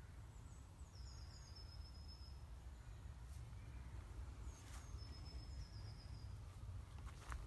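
A songbird singing two short phrases, each a high descending trill, over a faint low rumble of outdoor background noise.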